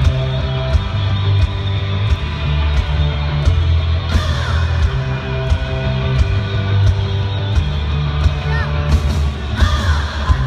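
Live pop-rock band played loud over an arena sound system: heavy bass, a steady drum beat and electric guitar, with a woman singing in short phrases about four seconds in and again near the end.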